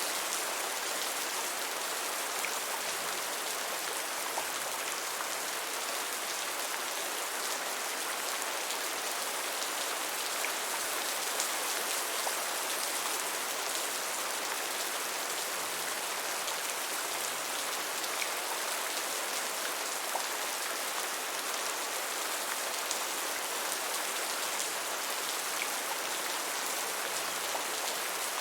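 Gentle, steady rain falling: an even hiss with faint scattered drop ticks.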